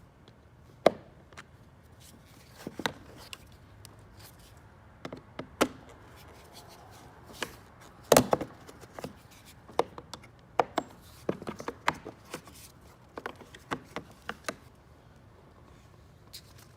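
Scattered sharp plastic clicks and knocks as a flathead screwdriver pries a fog light cover out of a plastic front bumper, its clips snapping free. The loudest snaps come about a second in and about eight seconds in, with a run of smaller clicks later on.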